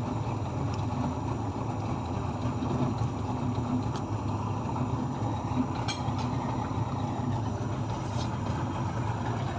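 Boat's outboard motor running steadily underway.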